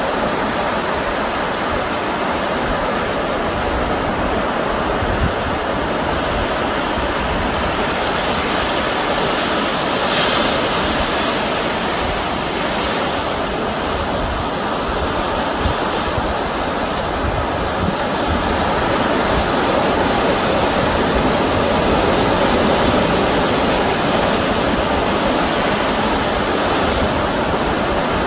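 Ocean surf rushing steadily on the shore, swelling a little about ten seconds in and again later on.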